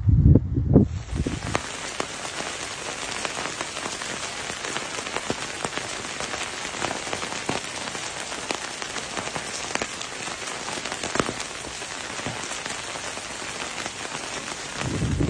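Volcanic ash and small lapilli from Etna falling on rooftops and the ground: a dense, steady hiss of countless small ticks, much like heavy rain. There are a few low bumps in the first second or so.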